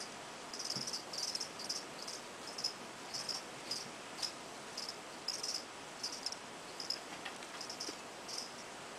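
Insect chirping: short, high-pitched chirps repeating irregularly, about two a second, over a steady hiss.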